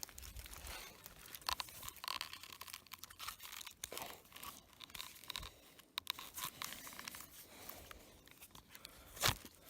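Faint, irregular rustling and crackling of dry wood and forest debris being handled while a belt is looped around a shelter pole, with scattered clicks and one sharper snap about nine seconds in.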